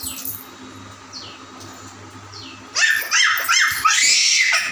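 A dog yelping: a quick run of short high yips starting a little past halfway, then one longer yelp.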